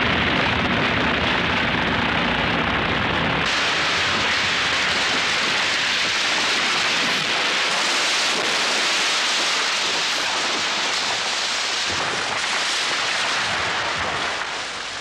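A felled rainforest tree crashing down through the canopy, with a long, loud rushing noise of branches and leaves coming down. The noise turns brighter about three and a half seconds in and fades near the end.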